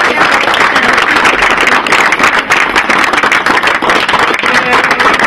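A group of people applauding, many hands clapping steadily.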